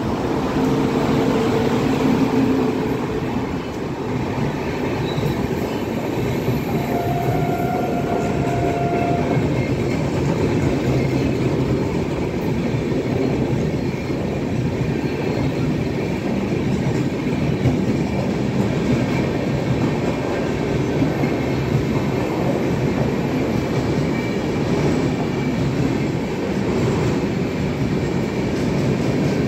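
A passenger express train passes close by: a WAP-7 electric locomotive goes past in the first few seconds, then a long rake of LHB coaches runs past with a steady rumble of wheels on rail.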